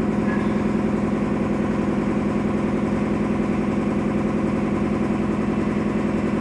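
An engine idling steadily, with an even pulsing beat.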